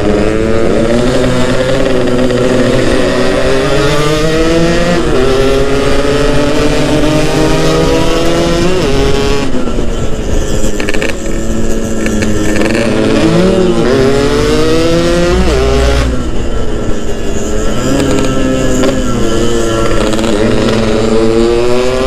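Yamaha RX-King two-stroke single-cylinder motorcycle engine under way, revving up and dropping back repeatedly as it shifts gears and rolls off, with wind rushing past.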